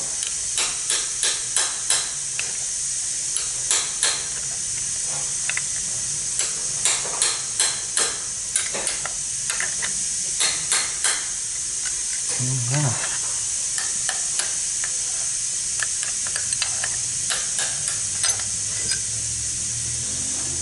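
Metal-on-metal taps of a hammer on a chisel, driving the worn axle bushing out of a Ford 6F35 transmission case. The taps come in quick runs of three to five, about three a second, with pauses between runs, over a steady hiss.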